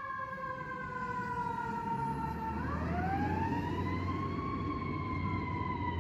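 Fire engine siren in a slow wail: the pitch slides down, rises again about two and a half seconds in, then slowly falls. A low rumble comes in about two seconds in.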